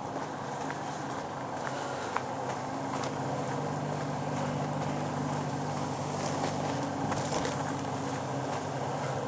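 Steady low hum of a distant motor engine, with faint scattered crunches of footsteps on a dirt path.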